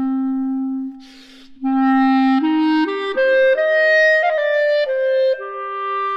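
Solo clarinet playing a slow melody: a held low note, a short breath about a second in, then a phrase climbing note by note and coming back down to a held note near the end.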